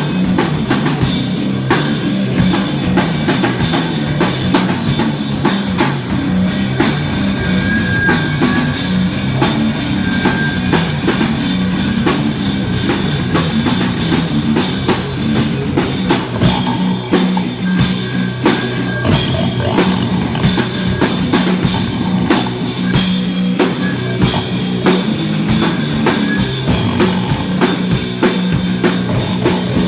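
Live rock/metal band playing loud with drum kit and guitars, the vocalist growling without words in a pig-squeal style instead of singing lyrics.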